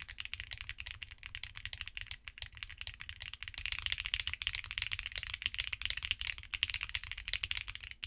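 Rapid typing on a mechanical keyboard: many quick keystroke clicks a second. The keyboard is fitted first with Akko V3 Matcha Green Pro linear switches, then, about halfway through, with Akko V3 Lavender Purple Pro tactile switches, which type slightly louder. Both switches have a polycarbonate top and nylon bottom housing.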